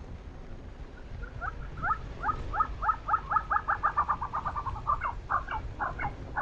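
Tibetan snowcock calling: a long series of clucking notes, each sliding down in pitch. The notes speed up into a rapid chuckling run, then slow and break up near the end.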